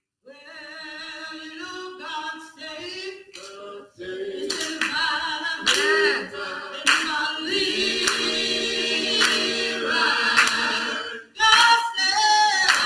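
A small gospel vocal group of men and women singing a cappella in harmony, joined from about four seconds in by hand claps keeping the beat.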